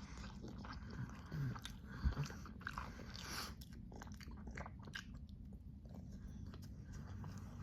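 A person chewing food close to the microphone, with scattered short wet clicks and smacks.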